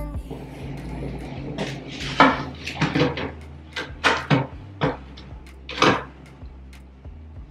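Irregular knocks, clicks and rattles of hard household items and a wooden closet shelf being handled and tugged, with a few sharper knocks about two, four and six seconds in.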